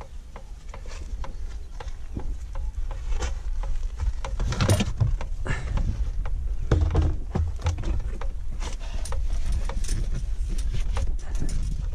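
Gear being rummaged out of a vehicle's boot: a run of irregular knocks, clatters and rustles as snake tongs and hooks are pulled out, busier from about four seconds in.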